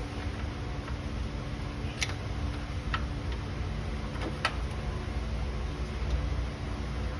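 A few sharp metallic clicks, two of them clear at about two and four and a half seconds in, from an oil filter wrench gripping and turning the oil filter to break it loose. A steady low hum runs underneath.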